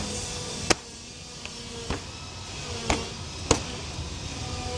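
A few short, sharp snaps or clicks at irregular spacing, about a second apart, over a steady background hum.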